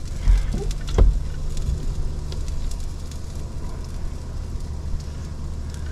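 Two short knocks about a second in as a camper-shell window is opened to let smoke out, over a steady low hum and hiss.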